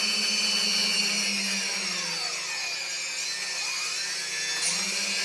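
Brushless motors of a quadcopter spinning without propellers on SimonK-flashed 30A ESCs, a whine of several tones; about two seconds in the pitch slides down and then climbs again near the end. The motors do not start evenly: even above half throttle not all of them run together.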